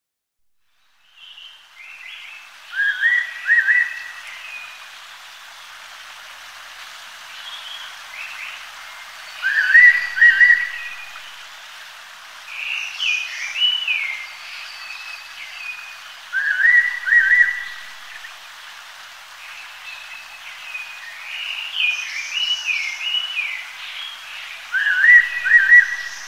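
Fairy pitta giving its clear two-note whistle four times, about every seven seconds. Other birds chirp and twitter between the whistles.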